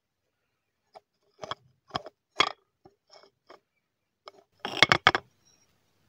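Hard, dry cup-shaped pieces handled on a glass plate close to the microphone: scattered sharp taps and clicks, then a louder rapid cluster about five seconds in.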